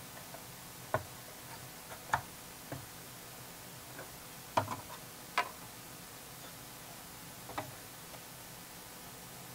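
Scattered sharp clicks and light knocks of plastic circuit cards being worked out of the Apple IIe's motherboard expansion slots and handled, about seven at irregular intervals, the loudest near the middle.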